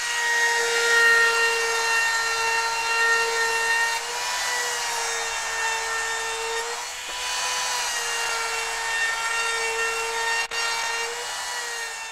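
Compact trim router running steadily as it cuts a roundover along the edge of a tabletop: a high, steady motor whine over the hiss of the bit cutting, its pitch dipping slightly now and then as it takes load.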